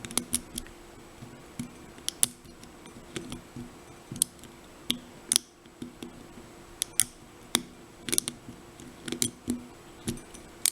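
Small, sharp metallic clicks come at irregular intervals as a lock pick works the pin tumblers of an American Lock 1105 series padlock under tension, setting pins 6 and 5.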